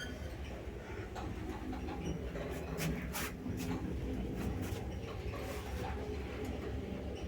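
ShchLZ passenger elevator running, a steady low hum with a few clicks, creaks and squeaks, the loudest cluster about three seconds in.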